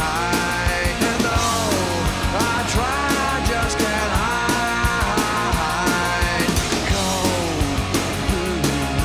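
Rock music with a steady drum beat and a lead line that bends in pitch.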